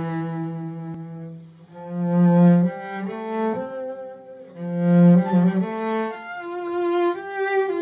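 Cello played with the bow: a slow melody of long held notes, low in the first half and moving to higher notes near the end.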